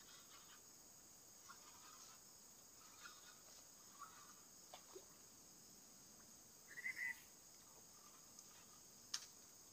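Faint, steady chirring of insects, with a few soft ticks. About seven seconds in there is a brief louder chirp-like sound, and a sharp click comes near the end.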